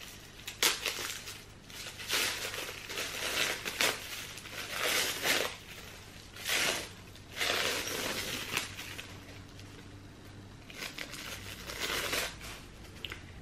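Wrapping being crumpled and pulled off a candle by hand: irregular crinkling rustles every second or so, with short pauses between.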